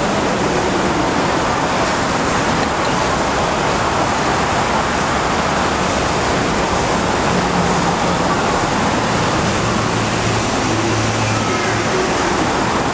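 Steady, loud wash of ambient noise on a covered railway station platform, with faint low hums coming and going a little past the middle.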